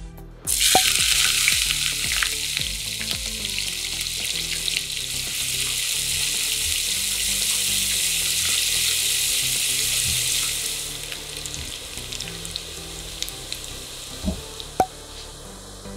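Sliced onions hitting hot oil with whole spices start sizzling loudly about half a second in and fry steadily as they are stirred with a spatula. The sizzle dies down after about eleven seconds, with a couple of light spatula taps near the end.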